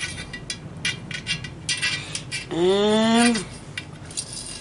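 A loose spoke nipple and its bolt clicking and rattling inside a hollow Campagnolo aluminium rim as a magnet drags them along toward the valve hole: a string of light metallic clicks.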